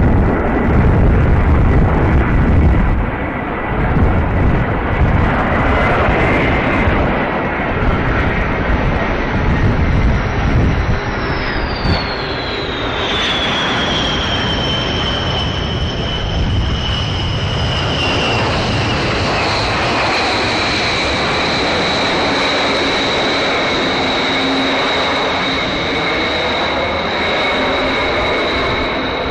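B-1B Lancer's four General Electric F101 afterburning turbofans on landing approach and rollout. A deep jet rumble comes first. About eleven seconds in, a high turbine whine falls in pitch as the bomber passes, then settles into a steady whine over the engine rush as it rolls away down the runway.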